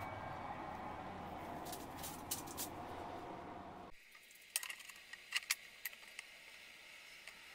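A steady background hum that cuts off abruptly about four seconds in, then a few light metallic clicks and clinks as a magnetic welding square is set against a steel angle bar on a wooden table.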